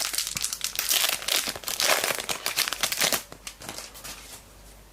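Trading-card pack wrapper crinkling and tearing as it is ripped open, dying away after about three seconds.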